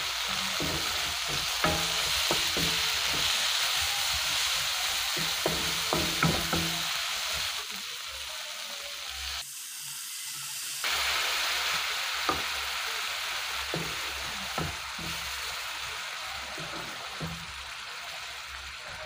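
Stir-frying in a metal wok: pork, tomato and shrimp paste sizzling while a wooden spatula scrapes and knocks against the pan. After a short break about halfway, the sizzle is softer once coconut milk is in, with more spatula strokes.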